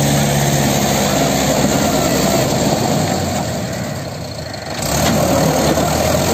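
Mahindra 585 DI tractor's diesel engine running hard while it pulls a fully loaded trolley through mud. It eases off about four seconds in and revs back up about a second later.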